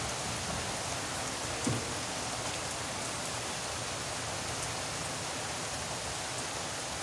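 Steady rain falling in a thunderstorm, an even hiss throughout, with one brief knock a little under two seconds in.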